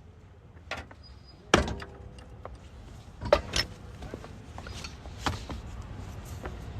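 A few sharp metallic knocks and clanks from tyre-change work on the wheel, the loudest about a second and a half in, over a low steady rumble.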